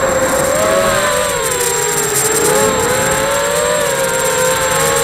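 FPV quadcopter's electric motors and propellers whining in flight, heard from the craft's own camera: several close pitches waver up and down together as the throttle shifts, dipping about two seconds in.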